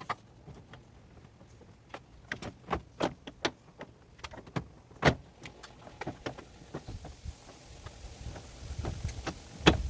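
Irregular clicks and knocks of plastic car-door trim parts being handled and fitted. The loudest knock comes about five seconds in and another near the end.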